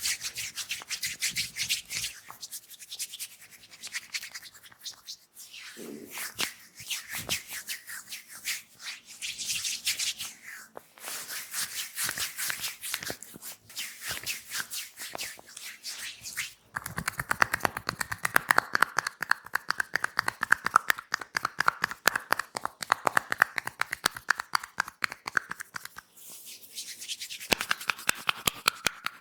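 Hands massaging an oiled back, skin rubbing on skin in quick strokes. A little past halfway this turns into a fast, even run of tapping strokes on the back, which stops about a second before the end.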